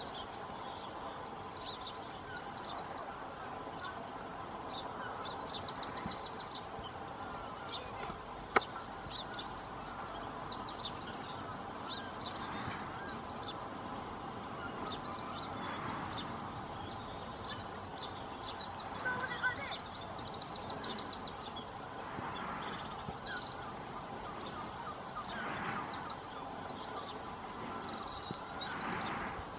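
A small songbird singing short, high phrases of rapid notes, repeated every few seconds, over a steady background hum. A single sharp click sounds about eight and a half seconds in.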